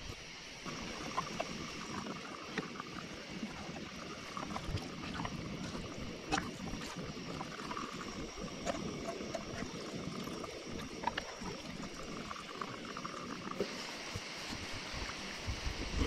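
Water trickling and splashing, with scattered small clicks and taps through it.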